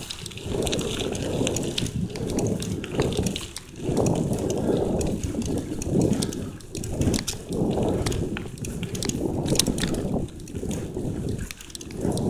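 Uneven wind rumble on the microphone from riding a bicycle along a dirt trail, with many small clicks and rattles from the bike and its tyres on the rough ground.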